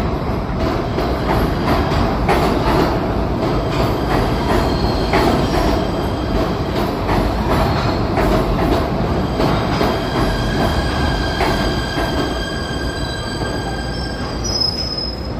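PATH subway train running into an underground station alongside the platform, with wheels clicking over rail joints. In the last few seconds high squealing tones from the wheels and brakes come in and rise as it slows.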